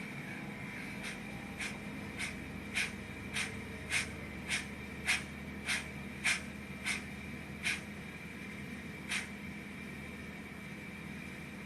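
Sound-fitted Rapido OO gauge model of the steam locomotive Lion, its decoder playing steam exhaust chuffs through the model's small speaker, a little under two a second, spacing out as the loco slows and stopping about nine seconds in, over a steady hum.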